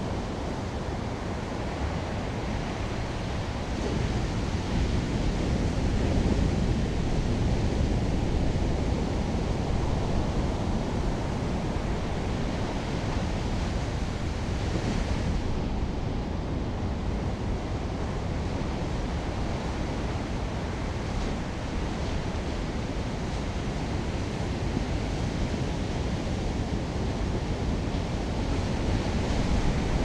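Large ocean waves breaking in a steady, continuous wash of surf, with wind rumbling on the microphone.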